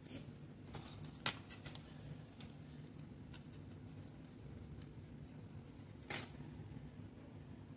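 A scattering of light clicks and taps from hands and a metal sculpting tool handling a small piece of clay, the sharpest about a second in and another about six seconds in, over a steady low hum.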